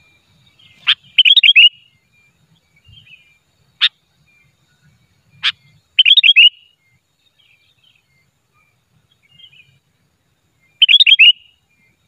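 Sooty-headed bulbul (kutilang) singing close up: three short bursts of four or five quick whistled notes, with single sharp call notes between them.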